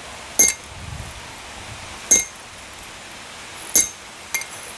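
Hand hammer striking a chisel held on a steel horseshoe on the anvil, cutting in the mane lines: four sharp ringing metal strikes, the first three about a second and a half apart and a lighter fourth just after the third.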